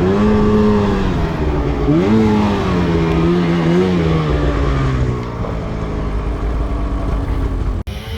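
Snowmobile engine running hard, its pitch jumping up in brief revs about two and four seconds in, then dropping and fading away. The sound cuts off abruptly near the end.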